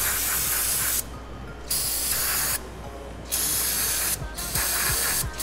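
Aerosol cleaner can with a straw nozzle spraying in four hissing bursts, each under a second long, with short pauses between them. The spray is flushing old alcohol-fuel buildup out of a disassembled fuel pump's parts.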